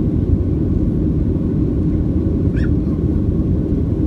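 Steady low rumble of a Boeing 737-700's CFM56-7B engines and airflow during climb-out, heard inside the cabin from a seat over the wing. A brief high squeak sounds once about two-thirds of the way through.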